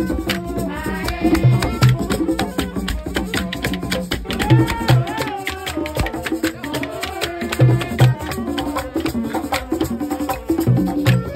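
Live fan-band drumming: congas and other hand drums beat a fast, busy rhythm, with voices singing along. A pair of deep low beats comes round about every three seconds.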